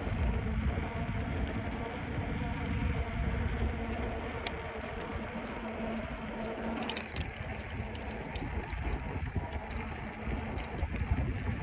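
Wind buffeting the microphone with steady tyre and road rumble while riding a bicycle, with a couple of brief clicks or rattles about midway.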